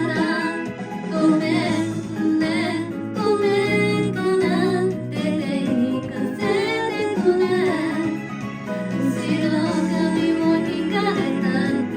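A woman singing a J-pop song over a karaoke backing track.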